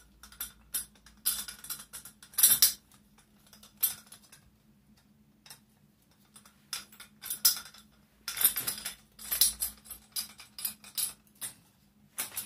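Metal tube legs of a folding shooting seat clinking and rattling as they are handled and fitted to the seat's folding frame: irregular bursts of metallic clatter with short quiet gaps, the busiest stretch a little past the middle.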